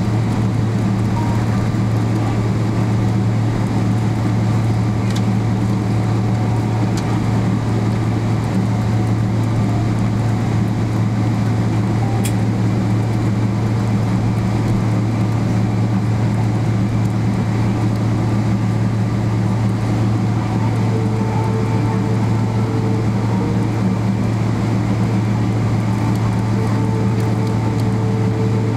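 Steady cabin drone inside a Boeing 777-300ER taxiing on the ground: an even low hum from the idling engines and the cabin air system. A faint higher whine comes and goes in the last third.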